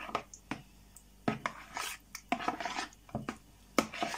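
Metal spoon stirring thick sour cream and condensed milk cream in a plastic mixing bowl: irregular scraping strokes with light clicks of the spoon against the bowl's side. It is being folded by hand, not whipped, so the sour cream won't turn runny.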